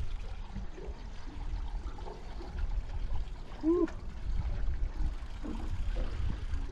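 Water lapping and trickling against the hull of a small aluminium boat, over a steady low rumble, with a brief pitched tone about four seconds in.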